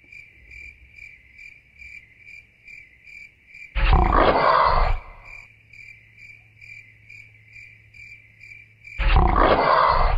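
Two dinosaur roar sound effects, each about a second long, the first about four seconds in and the second near the end. Under them runs a quick, steady electronic beeping, about three beeps a second, with a faint low hum.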